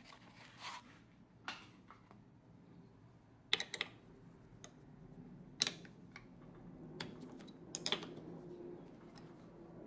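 Allen wrench clicking and tapping in the socket-head bolts of a Microlux mini lathe's compound rest as they are loosened: a scattered run of light, sharp metal clicks, several in quick pairs and triples.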